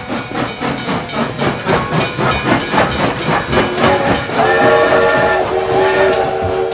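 Battery-powered toy steam locomotive playing its built-in electronic train sound: a rhythmic chugging, then a steam-whistle chord about four seconds in, held for about two seconds.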